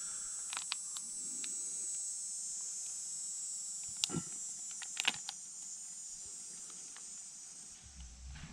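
A steady high-pitched trill in the background, stopping near the end, with a few sharp clicks and taps from handling the sealant bottle at the tire's valve stem.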